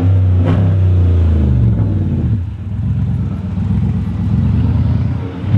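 Chrysler 300C Hemi V8 leaking exhaust through a broken flex pipe, giving a loud rumbling. The engine is blipped about half a second in and its pitch falls back over the next two seconds to a steadier idle, with another short blip near the end.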